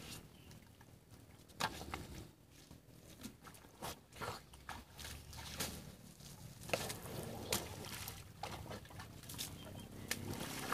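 Asian elephants at a mud wallow, their trunks working in the muddy water: irregular wet slaps and splashes, a dozen or so, spread unevenly over a low steady background.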